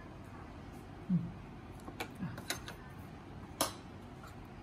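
A few light clinks of a metal spoon against enamel bowls as chili dip is scooped, the sharpest about three and a half seconds in. A short low hum from a voice about a second in.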